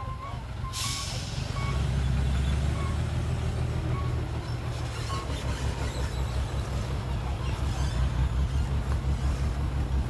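Heavy diesel engine running, growing louder about two seconds in and later pulsing rhythmically, with a short hiss of released air about a second in.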